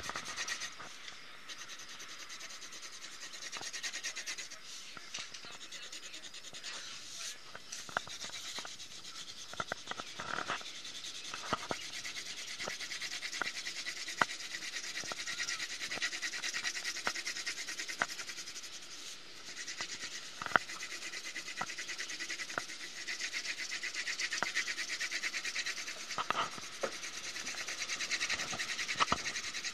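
Gray colored pencil shading on paper in quick back-and-forth strokes: a steady scratchy rubbing, with a few light clicks now and then.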